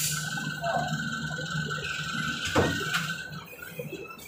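Steady low hum with a thin high whine from a range ventilation blower. A sharp click comes right at the start, and a duller knock about two and a half seconds in.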